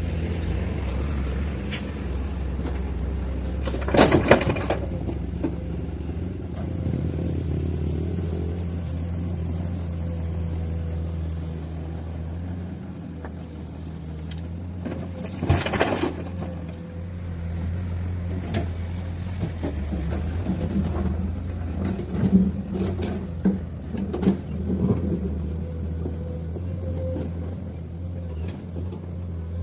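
Heavy diesel machinery running steadily, broken by loud crashes of rock being dropped into a steel dump truck bed: one big crash about four seconds in, another near the middle, and a run of smaller knocks and clatters later on.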